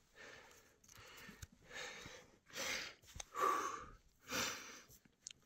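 A person breathing hard, a loud breath about once a second, out of breath from hiking uphill under a heavy backpack.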